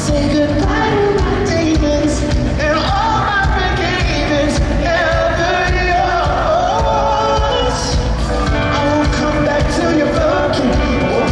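Pop-rock band playing live, a male lead singer's melody over electric guitar, bass and drums, heard from the audience in a large hall.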